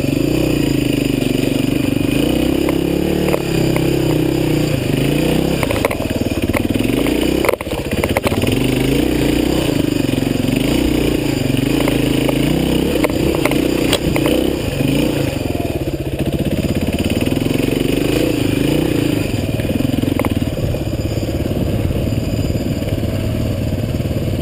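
Suzuki DR350 single-cylinder four-stroke dirt-bike engine running, its revs rising and falling over and over as the throttle is worked, with a brief drop about seven seconds in. A few sharp knocks and some clatter from the bike sound over it.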